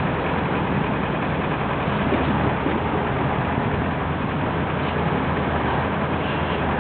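Heavy diesel engine running steadily at an even speed, with a low drone and a rough mechanical noise over it.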